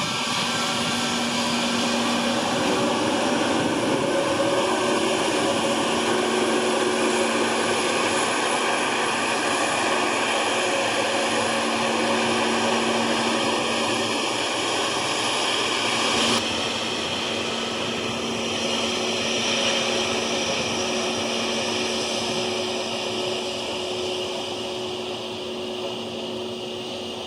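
Airliner engines running, a loud steady rushing noise with a low hum. The sound changes abruptly about two-thirds of the way through, then slowly fades.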